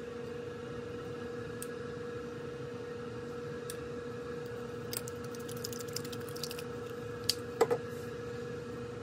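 Stand mixer with a dough hook running slowly through white glue in a stainless bowl, a steady motor hum with a constant tone. A run of light clicks comes about halfway through, then a few sharper knocks a little later.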